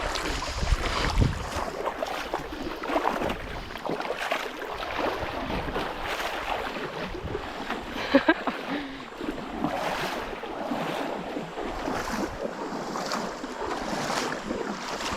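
Creek water splashing and running, with wind buffeting the microphone and scattered sharp knocks, two in quick succession about eight seconds in.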